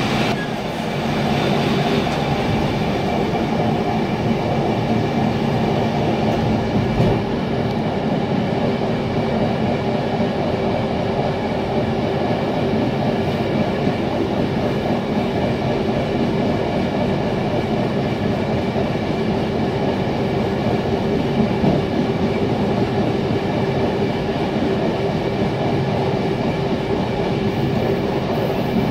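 PKP TLK passenger train running on the rails, heard from inside the train: a steady rolling rumble with a constant hum, and two brief louder knocks, about seven seconds in and again about twenty-one seconds in.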